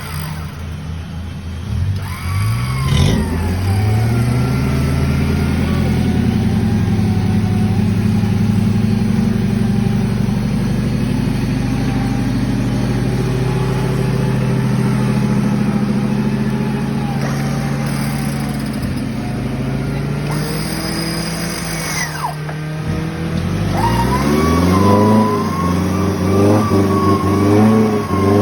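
Off-road vehicle's engine working hard on a muddy track: it revs up, runs steadily under load for a long stretch, drops off briefly, then climbs in several rising revs near the end.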